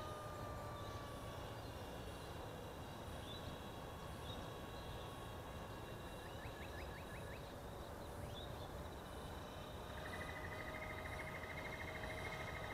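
Distant electric motor of an AXN model plane whining faintly and steadily, its pitch sliding slowly as it flies. Wild calls over it: a quick run of clicks about six seconds in, and a pulsing buzzy trill from about ten seconds in.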